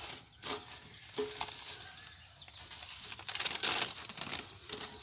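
Layers of a burnt computer circuit board being peeled apart and handled: brittle sheets of scorched fibreglass laminate rustling and crackling, with a louder scraping rustle about three and a half seconds in.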